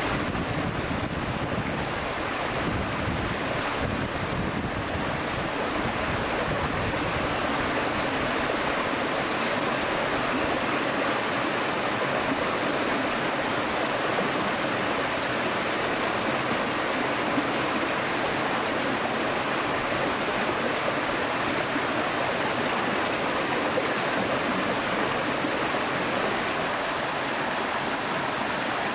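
Steady rushing of a rocky stream running over stones, constant throughout.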